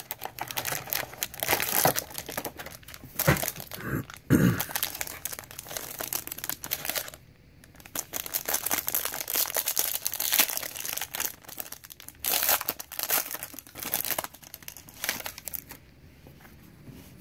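Foil wrapper of a trading-card pack crinkling and tearing as it is pulled open by hand, in irregular crackles that die down near the end.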